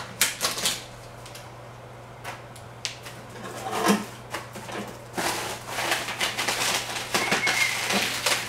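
Plastic wrapping and bubble wrap crinkling and rustling as they are pulled off a lawn mower's handle. There are a few crackles right at the start, then a quieter spell, then denser crackling through the second half.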